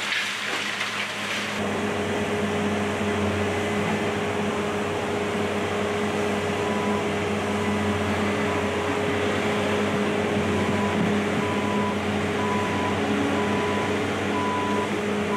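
A demolition excavator's diesel engine running steadily with a continuous hum. From about six and a half seconds in, a beeping repeats about twice a second. A brief rushing noise fills the first second and a half.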